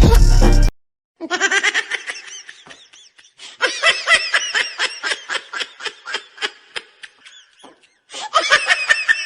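Laughter in three spells of quick, high-pitched pulses, about five a second, with short silent gaps between them. Loud music cuts off just under a second in.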